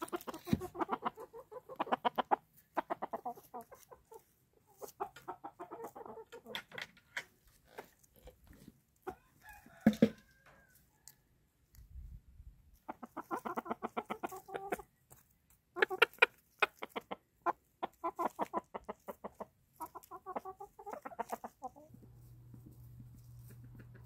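Black Silkie chickens clucking in quick runs of a second or two, with one louder squawk about ten seconds in. Near the end the clucking gives way to a steady low hum.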